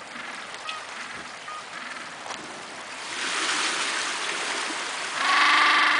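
Gentoo penguins calling, with short faint calls early on and a loud, drawn-out braying call from about five seconds in. A rushing wash of noise rises through the middle.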